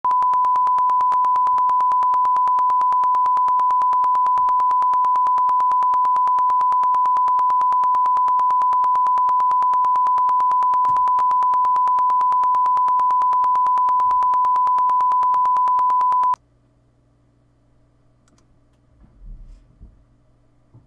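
Steady, high-pitched test-card reference tone, one unbroken pitch that cuts off suddenly about sixteen seconds in. A few faint low thumps follow near the end.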